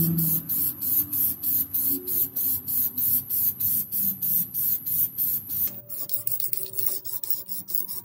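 Aerosol spray paint can hissing in short, regular bursts, about three a second; the hiss becomes quieter and the bursts come faster about two-thirds of the way through.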